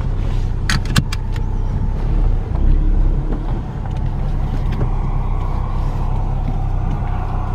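Ford Mustang's engine running steadily, heard from inside the cabin, with a few sharp clicks about a second in.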